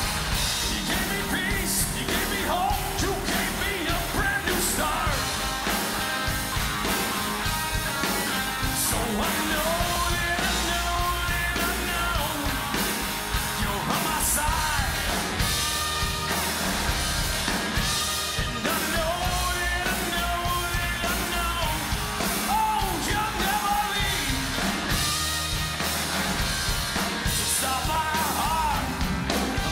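Live rock band playing, with a man singing lead over acoustic and electric guitars, bass and drums.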